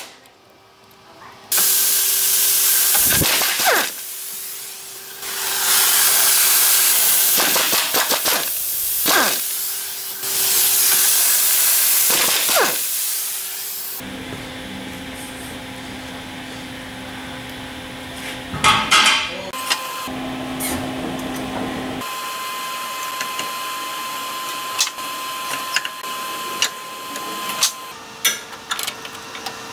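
An air tool runs with its exhaust hissing in several long bursts, loosening the 21 mm motor mount nuts. After that come quieter workshop sounds with scattered clicks and clanks of tools.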